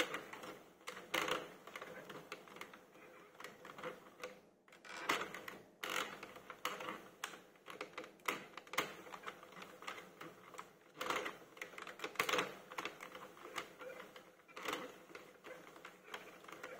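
Light, irregular plastic clicks and taps from the needles of a circular knitting machine as yarn is hand-wrapped zigzag between them during the cast-on.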